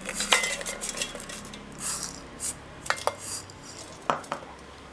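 Stainless steel kitchenware being handled: a few sharp clinks and knocks of bowls, mixer-grinder jar and utensils, with brief scraping between them, as jaggery goes into the steel mixer jar for grinding.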